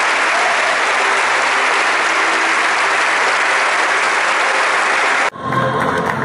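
A church congregation applauding steadily, a dense even clapping. About five seconds in the sound cuts off abruptly, then the applause picks up again, duller, with a few steady tones underneath.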